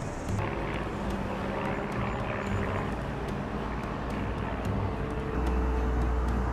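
City street traffic: a steady low rumble of passing vehicles and engines, with a deeper hum coming in about five seconds in.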